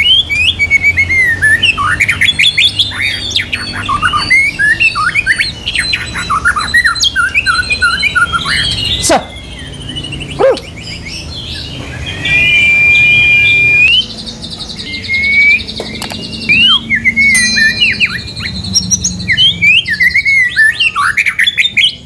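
White-rumped shama (murai batu) singing a loud, varied song of whistles and chirps, including a long held whistle and fast high trills. There is a sharp click about nine seconds in. It is singing readily even though it has only just been handled and newly arrived, a sign the bird is 'gacor', a keen singer.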